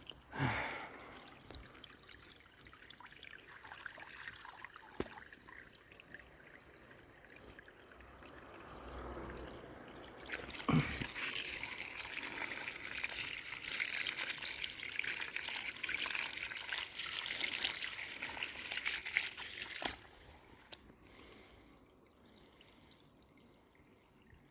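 Water trickling and splashing, with many small splashy clicks. It grows much louder from about ten seconds in and drops off abruptly at about twenty seconds.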